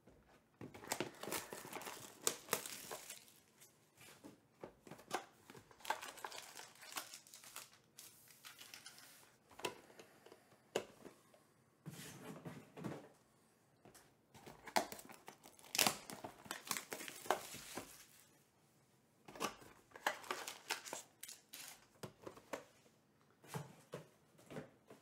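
Trading card pack wrappers being torn open and crinkled in irregular bursts, with cards handled between them.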